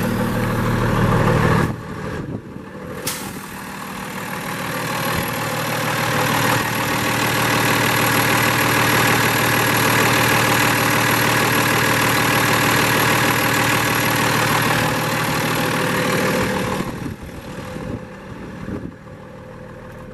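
Cummins ISC 350 hp inline-six diesel idling steadily, heard up close at the open hood. It grows louder over the first several seconds and drops away near the end. There is a single sharp knock about three seconds in.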